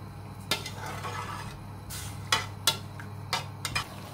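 Metal spoon stirring lemon peel in sugar syrup in a metal saucepan, clinking and scraping against the pan in several sharp knocks. A steady low hum runs underneath.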